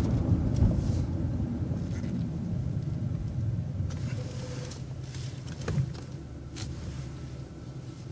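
City transit bus running, a low engine and road rumble that gradually fades, with a short click a little past the middle.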